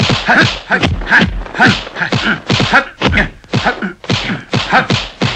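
Kung fu film fight sound effects: a rapid run of dubbed punch-and-block whacks, about three a second, as two fighters trade blows at close quarters.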